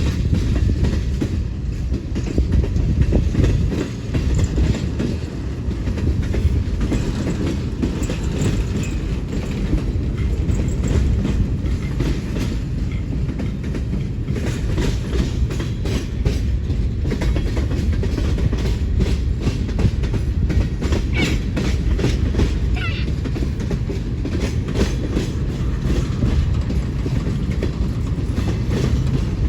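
Railroad cars rolling past with a steady low rumble and rapid clickety-clack of wheels over rail joints, with brief faint wheel squeals about two-thirds of the way through.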